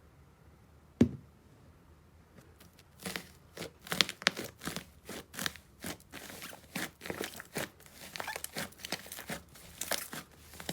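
Slime being pressed and squeezed by hand: one sharp click about a second in, then from about three seconds a rapid run of crackling, crunchy pops, several a second.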